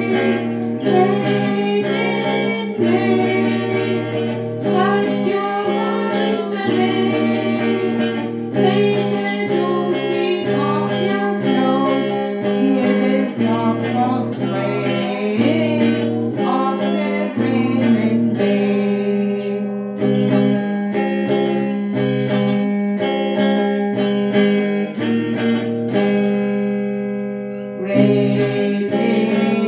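A woman singing a song to her own electric guitar, played through a small amplifier. The guitar chords hold steady under the voice, and the singing pauses briefly near the end before coming back in.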